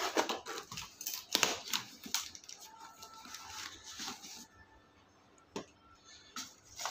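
Cardboard shipping box being opened: packing tape cut and the flaps pulled open, a dense run of crackles, rustles and clicks for about four seconds, then a few separate taps.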